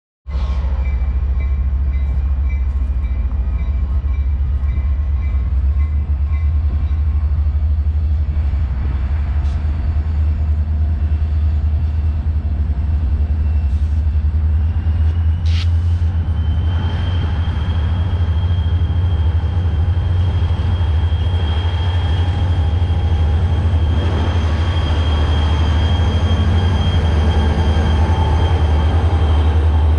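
CSX diesel freight locomotives approaching and passing close at the head of a freight train, with a steady deep rumble throughout. A steady high whine sets in about halfway through, and the sound grows a little louder toward the end as the locomotives draw alongside.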